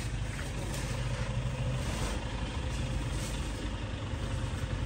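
Steady low rumble of an idling engine, with a few faint clicks and rustles over it.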